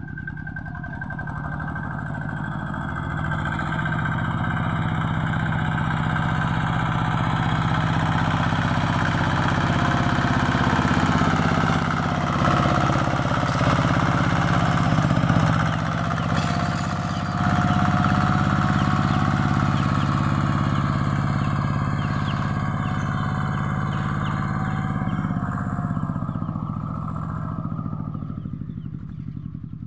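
Engine of a small homemade farm tractor running steadily under load while ploughing. It grows louder as the tractor passes close about halfway through, then fades as it drives away near the end.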